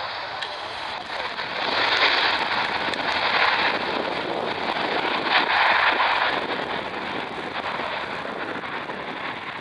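Boeing 737-800's CFM56-7B jet engines in reverse thrust on the landing rollout, a broad crackling roar. It builds about a second and a half in, is loudest over the next few seconds, then eases as the reversers are stowed.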